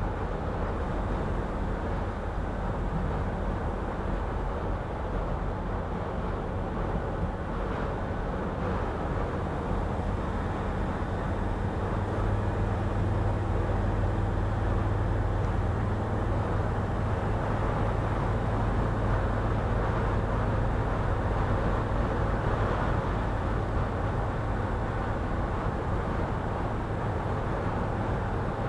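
Mercedes Sprinter van driving in strong wind, heard from inside the cab: a steady rumble of road and wind noise with a low hum that grows louder about twelve seconds in.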